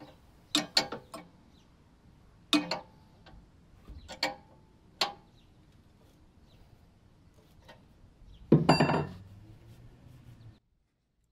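Several short metallic knocks and clicks, then about 8.5 s in a single pull on the recoil starter of a 196cc single-cylinder diesel engine: a rattling whir under a second long with a low hum trailing on for about two seconds before it cuts off suddenly.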